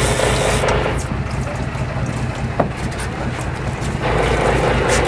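Fishing boat's engine running steadily under wind and water noise, its note getting louder about four seconds in, with a single sharp click about halfway through.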